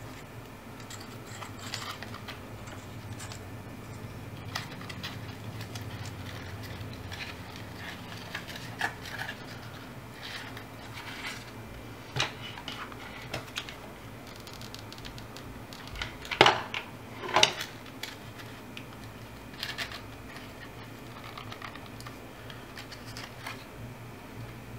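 Paper strips and cardboard being handled and wrapped: rustling with light clicks and taps, and two louder knocks about two-thirds of the way through, over a faint steady low hum.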